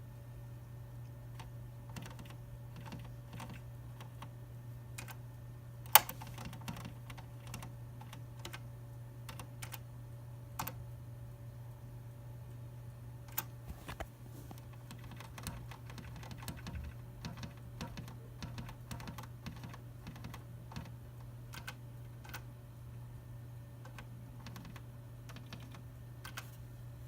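Scattered light clicks and taps at an irregular pace, with one sharp, louder click about six seconds in, over a steady low hum.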